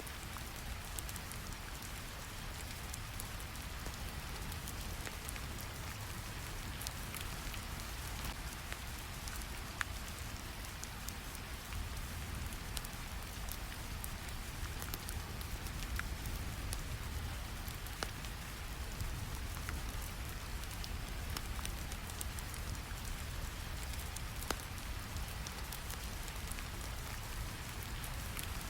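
Steady rain with a low, even rumble of brown noise beneath it, and the scattered small crackles of a fire, with a few sharper pops now and then.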